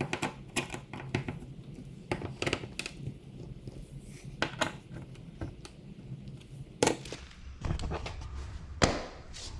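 Irregular sharp clicks and knocks of plastic dog-door parts being handled and snapped into place while a replacement Airseal flap is fitted into its frame.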